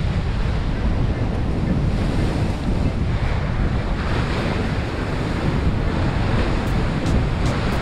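Ocean surf breaking on a rocky shore, with wind buffeting the microphone.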